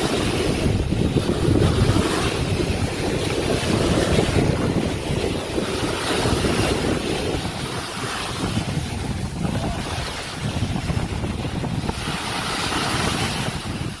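Ocean waves breaking and washing up a sandy beach, with wind buffeting the microphone; the surf swells and eases every few seconds.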